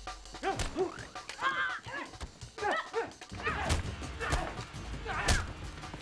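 Fight-scene sound track: a quick run of short, sharp pitched cries, then several hard blows and crashes, over background music.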